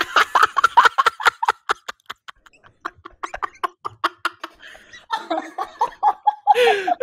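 Two people laughing hard together in quick, breathy bursts, with higher-pitched, drawn-out laughs near the end.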